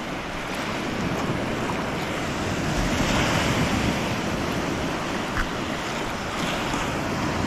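Small sea surf breaking and washing up a sandy shore, with wind rumbling on the microphone; the wash swells slightly about three seconds in.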